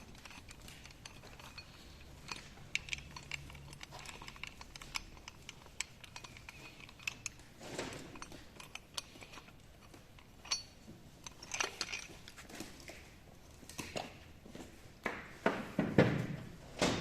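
Metal hand tools and VQ35DE engine parts clinking and clattering during engine teardown. Scattered light ticks give way to a few louder clunks near the end.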